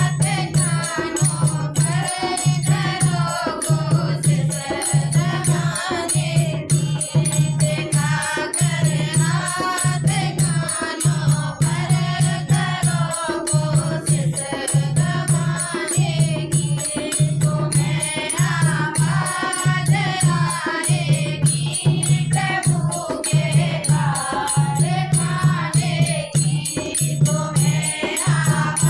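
Hindi devotional bhajan sung by a group of women, with a steady low beat about once a second and rattling hand percussion.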